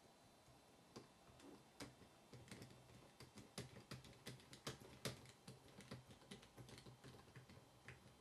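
Faint, irregular light clicks and taps, starting about a second in: small parts of a 1/16 radio-controlled model car being handled during reassembly.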